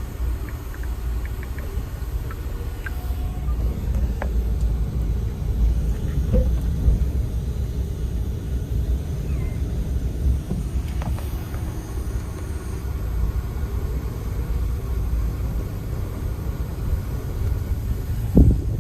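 Steady low rumble of a motor vehicle on the move, with a few faint clicks and a short knock near the end.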